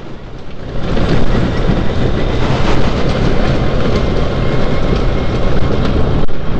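Single-cylinder trail motorcycle engine pulling hard along a rutted woodland track, getting louder about a second in. The bike rattles and jolts over the ruts.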